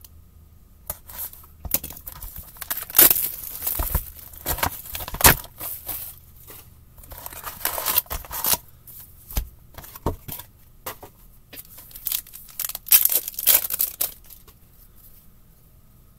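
Hockey trading card pack being torn open by hand, with the wrapper crinkling: a run of irregular tearing and rustling noises that starts about a second in and dies away near the end.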